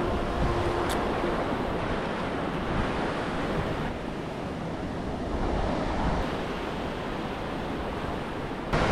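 Small waves breaking and washing through the shallows, with wind buffeting the microphone.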